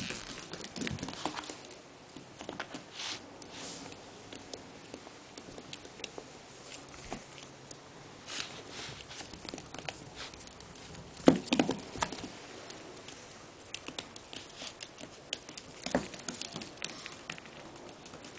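A small dog scampering on a hardwood floor after a tennis ball: claws tapping irregularly, with scattered knocks. The loudest knock comes about eleven seconds in, and another follows near sixteen seconds.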